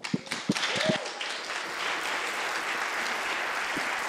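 Audience applauding: a few scattered claps at first, quickly filling out into steady applause from the whole room.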